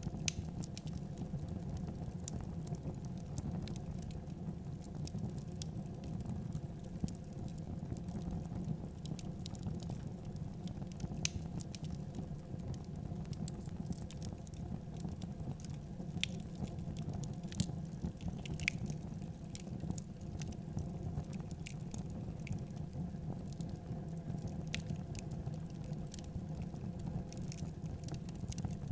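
Dried rice grains rustling and pattering as hands stir and scoop them in a woven bamboo basket, with many small scattered clicks of falling grains. A steady low hum runs underneath.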